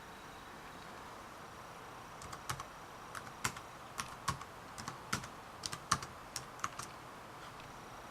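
Typing on a ThinkPad T61 laptop keyboard: a run of irregular key clicks beginning about two seconds in and lasting some five seconds, over a faint steady hiss.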